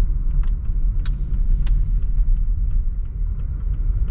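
A car driving along, with a steady low road rumble and scattered sharp clicks and ticks.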